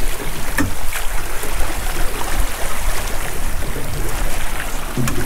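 Choppy water splashing against a boat's side and around a landing net as a thornback ray is scooped in, with wind rumbling on the microphone.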